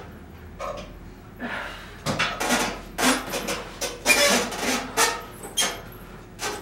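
A rapid series of sharp metallic clanks and knocks from a home-gym bench and frame as a person shifts and climbs off it. The clatter starts about a second and a half in and stops shortly before the end.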